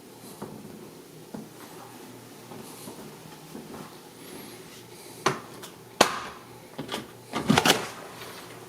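A front door being opened: a few sharp clicks and knocks from the handle and latch, then a louder clatter of knocks near the end.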